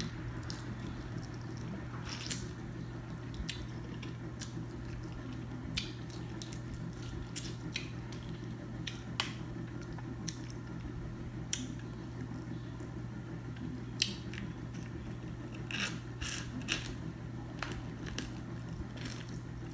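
Mukbang-style close eating: biting and chewing shellfish from a seafood boil held in the hands, with scattered short wet clicks and crackles, over a steady low hum.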